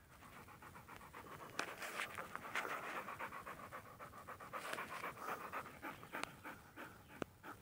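A dog panting hard close to the microphone in quick breaths, heaviest through the middle of the stretch, with a few sharp clicks near the end.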